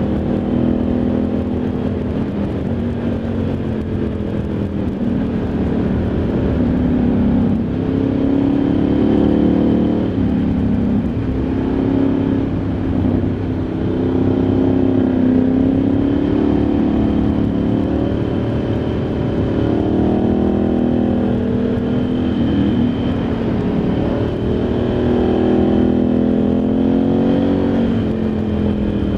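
Ducati Multistrada 1100S's air-cooled L-twin engine under way, heard onboard the motorcycle. Its note rises and falls repeatedly as the rider accelerates and eases off.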